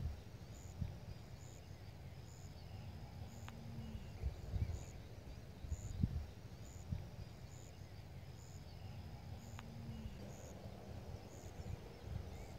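Quiet outdoor evening ambience by a pond: a faint, high chirp repeats about once a second over a low rumble of wind on the microphone, with a few soft thumps.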